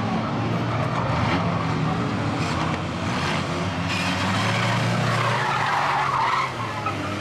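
Banger-racing vans' engines running hard on a tarmac oval, with tyres skidding. A longer skid swells about five seconds in and cuts off a second and a half later.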